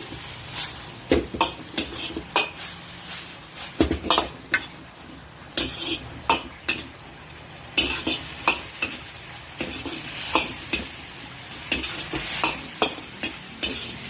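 Ground pork with basil sizzling in a hot pan while a spatula scrapes and knocks against the pan in an irregular stir-frying rhythm.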